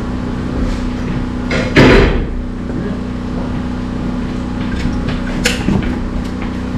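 A loud bang about two seconds in and a lighter sharp knock later, over a steady low hum.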